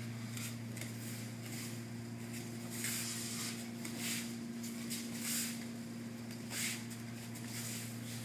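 Cotton martial-arts uniforms swishing and bare feet scuffing on the mats as two partners grapple and throw, in a string of short rustles, over a steady low hum.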